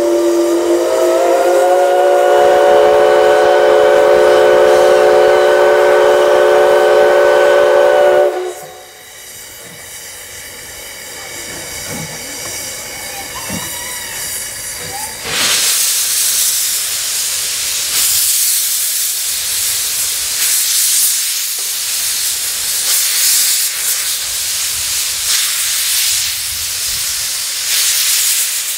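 Steam locomotive C56 160 sounds a long whistle of several tones together, a departure whistle, which slides up slightly in pitch as it opens and cuts off after about eight seconds. Later a sudden loud hiss of steam starts and carries on with uneven surges.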